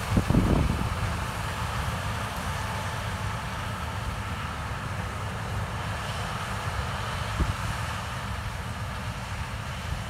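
John Deere S680 combine running steadily as it harvests corn, a continuous machine rumble. Short wind buffets hit the microphone about half a second in and again about seven seconds in.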